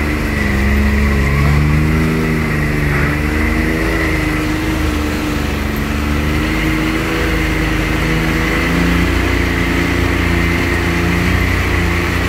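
Can-Am X3 Turbo R side-by-side's turbocharged three-cylinder engine running under load, heard from inside the cab: its note rises and falls with the throttle for the first few seconds, then holds steadier over a low rumble and a thin, steady high whine.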